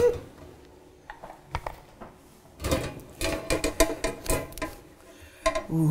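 Metal loaf pan knocked and rattled against a wire cooling rack to release a freshly baked loaf of bread: a quick run of clattering metallic knocks starting a couple of seconds in.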